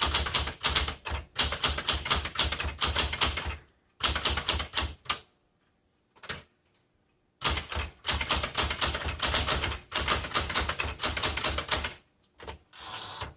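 A 1977 Smith Corona Classic 12 manual typewriter being typed on in quick runs of keystrokes, broken by a pause of about two seconds near the middle with a single keystroke in it.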